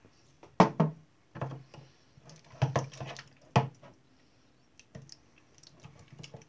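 Metal spoon stirring a wet, thickening slime mixture of PVA glue and borax water in a plastic bowl: a string of irregular sharp clicks and knocks as the spoon strikes and scrapes the bowl.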